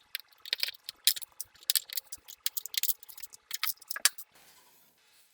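Small parts clicking and clinking as they are handled and set down: a rapid, irregular run of light clicks and clatters that stops about four seconds in.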